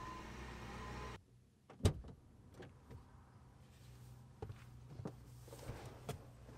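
A steady background cuts off abruptly after about a second, then a sharp click, followed by a few soft knocks and rustles as a person climbs into a car's driver's seat through the open door and settles in.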